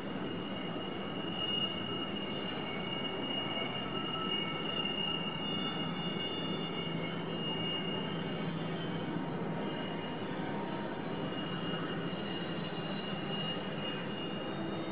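Long double-stack intermodal freight trains rolling by, their steel wheels squealing against curved rail: several steady high-pitched squeal tones that shift in pitch over a continuous low rumble of the cars.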